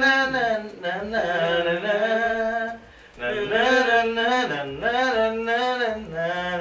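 A man singing unaccompanied in two phrases of long held, wavering notes, with a short break about three seconds in.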